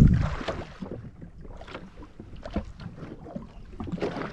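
A gust of wind on the microphone dies away within the first second. It leaves light wind and water lapping against a drifting jet ski's hull, with scattered small clicks and taps.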